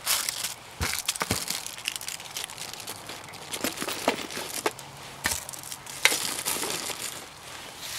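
Plastic packaging crinkling as small gear items in clear bags are handled and moved around, with a few soft knocks as things are set down.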